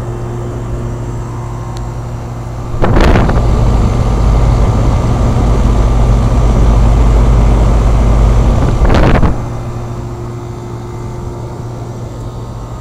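1992 Lennox central air-conditioner condensing unit running with a steady low hum of compressor and fan; the owner judges it low on or out of Freon, as it is not cooling. About three seconds in, a much louder rushing noise starts abruptly, holds for about six seconds and cuts off suddenly.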